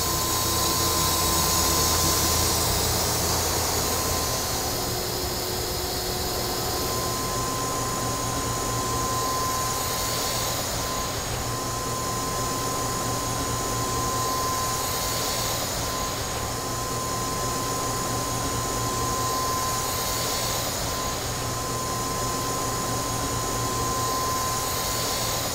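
Steady drone of running machine-shop machinery: a constant high whine over a broad hiss. A low hum drops away about four seconds in.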